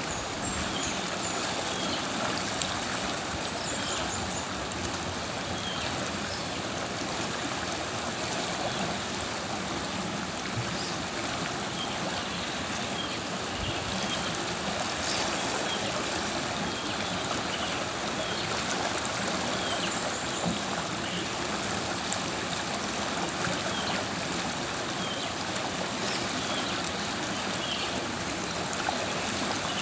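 River water flowing, a steady rush of water.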